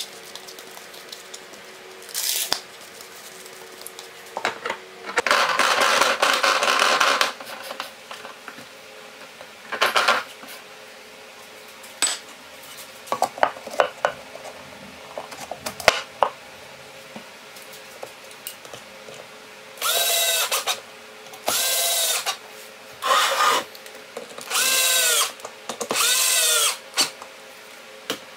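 Electric drill driving a homemade plywood disc sander, switched on briefly five times in a row, its pitch rising and falling with each short run. Earlier there are rubbing and knocking sounds as the sanding disc and wooden parts are handled.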